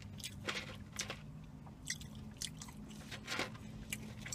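Close-miked chewing of two people eating bread and takeout food, with irregular wet mouth clicks and smacks, over a low steady hum.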